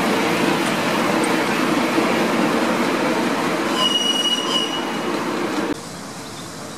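Miniature park railway passenger cars running past on a curved track, a dense rolling rumble and clatter of small wheels on rail, with a brief high wheel squeal about four seconds in. Near the end it drops abruptly to a quieter steady noise.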